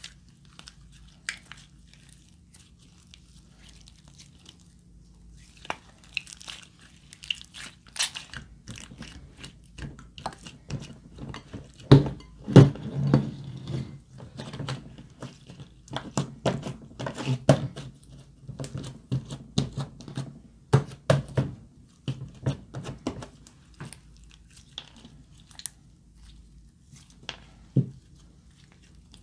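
Glossy slime being kneaded, pressed and stretched by hand, giving irregular sticky clicks, pops and crackles. They come thickest and loudest through the middle, with only a few near the start and near the end.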